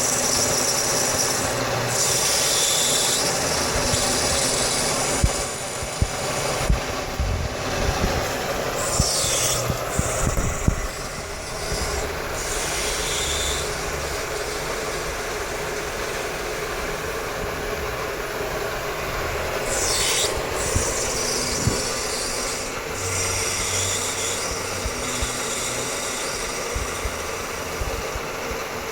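CNC-converted Bridgeport milling machine running with its spindle turned on its side, turning brass stock against lathe tools clamped in the vise. A steady machine hum, with bursts of higher scraping hiss lasting a second or so as the tool cuts, and scattered small clicks.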